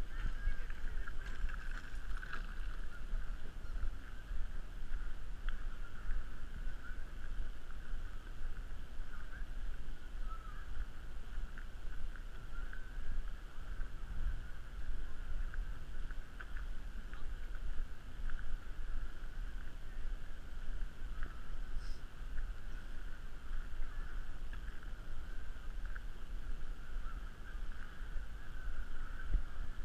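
Wind rumbling and buffeting on the microphone of a body-worn GoPro during a walk, under a steady faint high whine.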